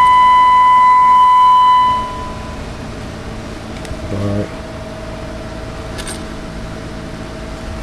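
A constant audio test tone, a steady whistle-like note used to drive a Galaxy DX-979 CB radio's modulation during tune-up, sounds for about two seconds and then cuts off. It leaves a faint steady hum and hiss, with a short low sound about four seconds in.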